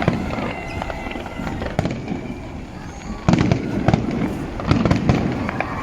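New Year fireworks display going off: repeated bangs and crackling, with a loud cluster of bursts about three seconds in and another near the end.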